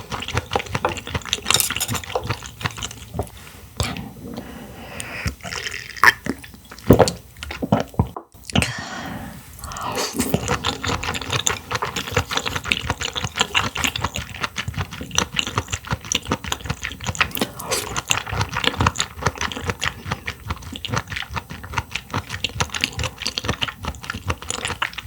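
Close-miked eating: wet chewing of clam meat and clam soup, with many small irregular clicks and liquid sounds and a few louder wet smacks about six to seven seconds in.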